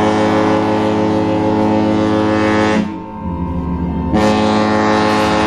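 Cruise ship's horn sounding long blasts of the general emergency signal for a muster drill: one blast cuts off about three seconds in, a lower tone carries on in the gap, and the next blast starts about a second later.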